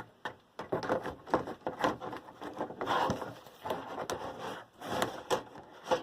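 Box-fan parts being handled and packed away: a run of irregular knocks and taps mixed with scraping and rubbing.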